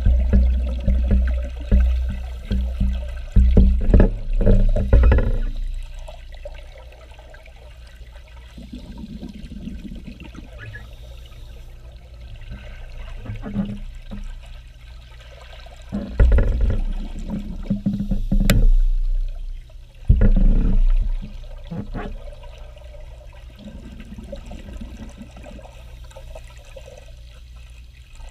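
Scuba regulator exhaust bubbles heard underwater: bursts of bubbling in the first five seconds and again about two-thirds of the way through, with quieter water noise between.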